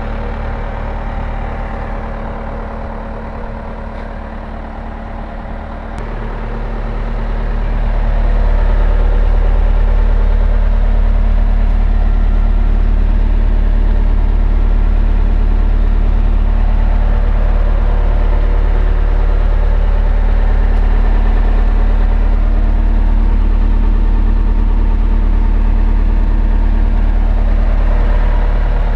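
Cat 236B3 skid steer's diesel engine running steadily; a little after five seconds in there is a faint click, then the engine grows louder over about two seconds and keeps running at that higher level.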